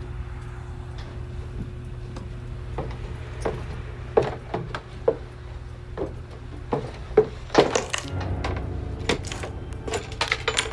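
Irregular knocks, thuds and creaks of someone climbing down steep wooden stairs. They start about three seconds in and come loudest around the middle, over a steady low hum.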